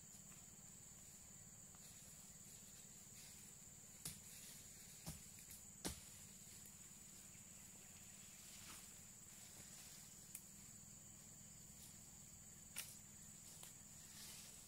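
Quiet forest ambience: a steady high-pitched insect drone, with a handful of sharp clicks or snaps scattered through, the loudest about six seconds in.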